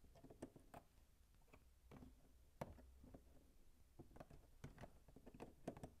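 Faint, irregular clicks and taps of LEGO plastic pieces being handled and pressed onto the typewriter model's casing. The clearest click comes about two and a half seconds in, and a quick run of clicks follows near the end.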